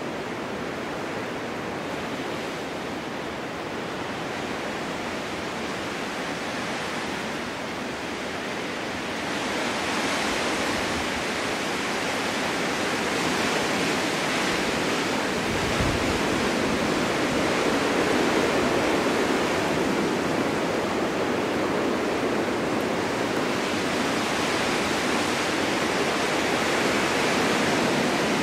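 Snowstorm wind blowing as a steady noise with no distinct events, swelling louder about ten seconds in and staying up.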